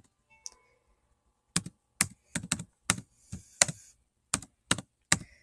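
Typing: about ten sharp, separate taps, roughly two a second, starting about a second and a half in.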